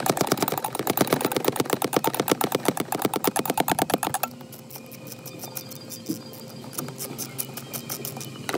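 Ratchet wrench clicking rapidly and evenly as a fastener is spun out, about ten clicks a second, stopping a little past halfway; a few faint scattered clicks follow.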